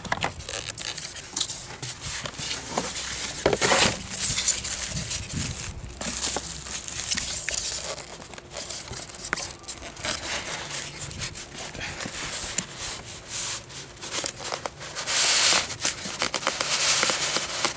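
Cardboard box, styrofoam packing and plastic bag rustling, rubbing and crinkling as a packed bread maker is worked out of its tight carton. There are louder scrapes about four seconds in and again near the end.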